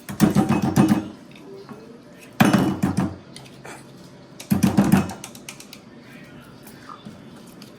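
A spoon scraping and knocking cake batter out of a mixing bowl, in three bursts of clattering strokes a couple of seconds apart.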